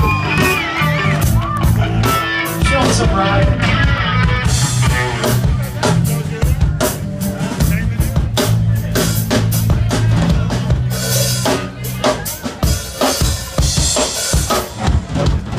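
Live band playing through an outdoor PA: guitars, a bass line and a drum kit, with a sung line in the first few seconds. About twelve seconds in, the bass and guitars drop out and the drums play on alone.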